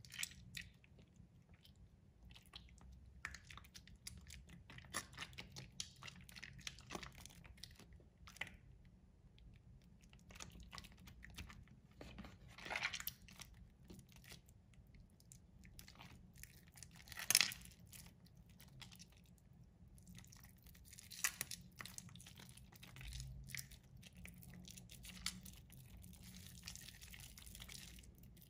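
Hands squeezing and kneading a soft, water-soaked bar of soap, giving faint, irregular wet squishing and crackling crunches as the mushy soap squeezes and breaks apart; the loudest crunch comes a little past halfway.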